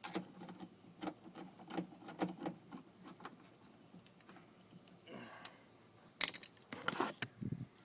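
Screwdriver driving the last screw into a car door's handle and latch assembly: irregular small clicks and taps of the tool and parts, with a few louder clatters near the end.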